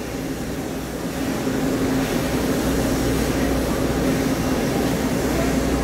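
Diesel train engines idling at a standstill: a steady low drone with a held hum, growing slightly louder about a second and a half in.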